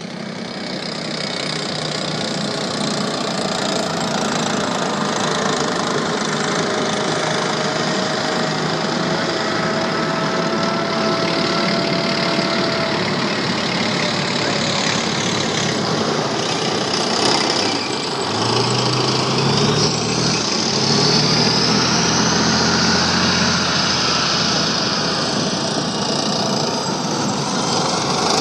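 Tracked armoured vehicles, M1 Abrams tanks among them, driving past close by: a continuous loud rumble of engines and running gear with a thin high whine over it. About two-thirds of the way through, a deeper engine note joins in for a few seconds as another vehicle passes.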